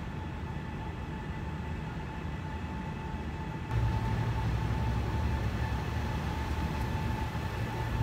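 Low steady rumble of a small cutaway shuttle bus's engine idling in an enclosed parking garage, getting louder a little under four seconds in, with a steady high hum running over it.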